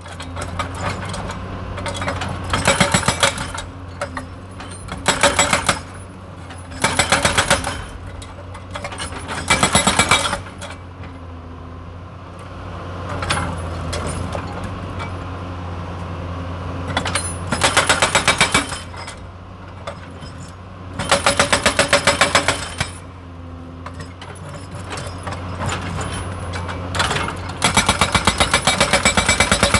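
Excavator-mounted hydraulic rock breaker hammering stones in repeated bursts of rapid blows, each burst lasting a second or two. The diesel engine hums steadily between the bursts, and the hammering runs on from near the end.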